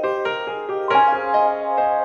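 Background music: gentle piano or keyboard melody, notes struck every half second or so.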